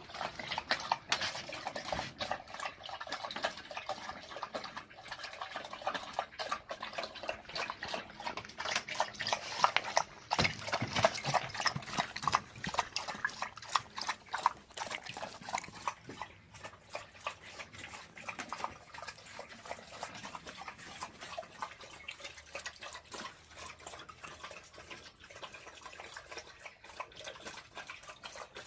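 A dog's wet mouth sounds: a dense, uneven run of quick clicks and smacks.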